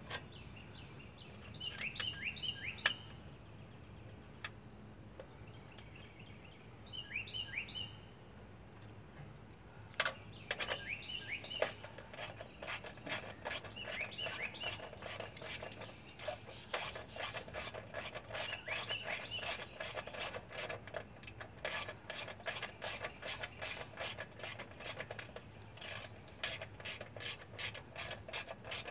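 Hand ratchet wrench clicking as a bolt is turned: a few scattered clicks at first, then quick, steady runs of clicks from about a third of the way in. Birds chirp in short falling calls during the first half.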